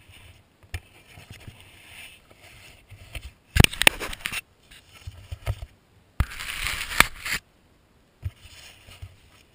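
ATV ridden over a rocky dirt trail, heard through a GoPro's waterproof housing: muffled knocks and rattles throughout, with two loud bursts of rushing noise about a second long, near the middle and about six seconds in.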